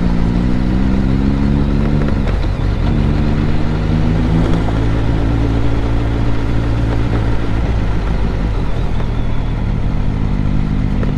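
Motorcycle engine pulling away and accelerating, rising in pitch. It breaks briefly for a gear change about two seconds in, pulls again, then eases off and picks up near the end, over steady wind rush.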